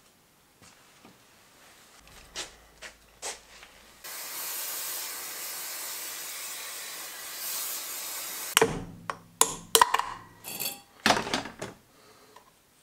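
A steady spray-like hiss for about four and a half seconds, then a quick run of sharp metal clanks and knocks, some of them ringing briefly, as gearbox parts and ball bearings are handled.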